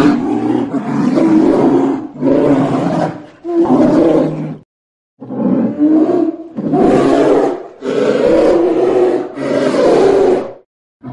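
Polar bear vocalizing in a run of about seven loud growls, each one to one and a half seconds long, with a half-second pause about halfway through.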